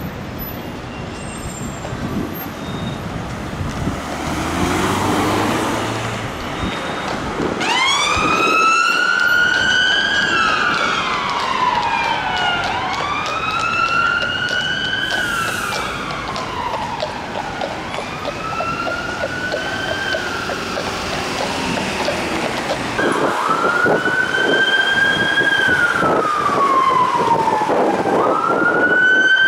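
Emergency vehicle siren over street traffic. It starts about a quarter of the way in on a London Ambulance Skoda Octavia running on blue lights. The siren wails in slow cycles, each a quick rise and a long falling sweep, about one every five seconds, with a brief break about three-quarters of the way through.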